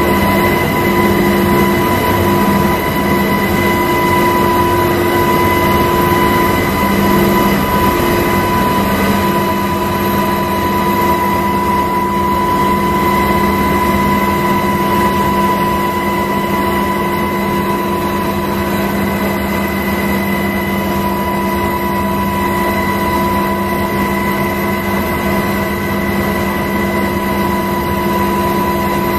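Steady on-board noise of the aircraft making the overflight: an even roar with several constant whining tones that do not change in pitch.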